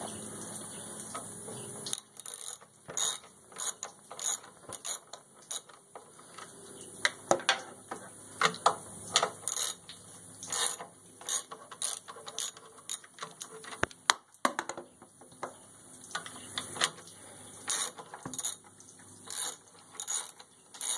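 Socket ratchet clicking in short irregular bursts as the 9/16 bolts holding the muffler are backed out.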